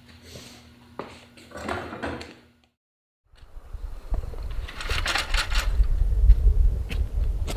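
Small handling knocks and rustling over a steady low hum, then a sudden cut to a heavy low rumble of wind on the microphone with scuffing steps and sharp clicks.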